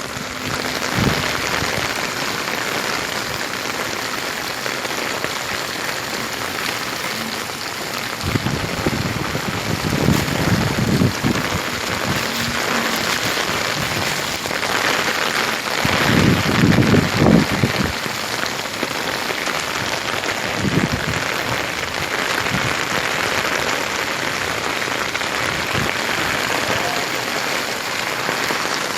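Heavy rain falling steadily, with a deeper low rumble swelling twice, about a third of the way in and again just past halfway.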